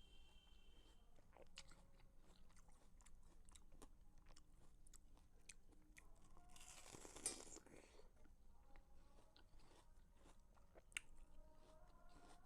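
Watermelon being bitten into and chewed close up, quiet and crunchy, with many small wet clicks and one longer, louder juicy bite about seven seconds in.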